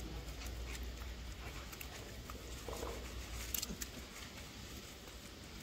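German Shepherd puppy's claws and paws clicking and pattering in scattered light taps on a hard, wet surface, over a low steady hum.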